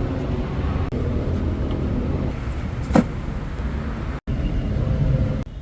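A car engine running with a steady low rumble, with a single sharp click about three seconds in.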